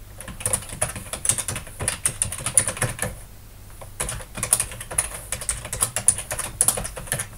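Typing on a computer keyboard in two quick runs of key clicks, about three seconds each with a short pause between: a username and then a password being entered at a git push login prompt.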